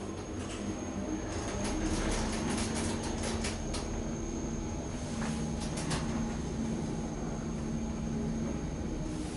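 KONE MonoSpace traction lift car travelling down between floors, giving a steady low hum with a faint high-pitched whine and a scattering of light clicks. The whine cuts off near the end.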